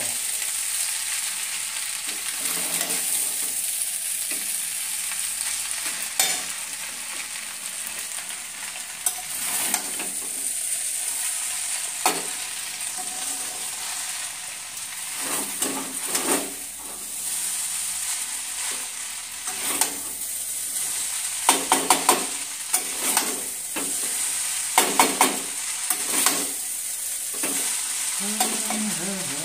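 Noodles sizzling with a steady hiss in a frying pan on a gas stove while a spatula stirs and tosses them, with repeated scrapes and knocks of the spatula against the pan, more frequent in the second half.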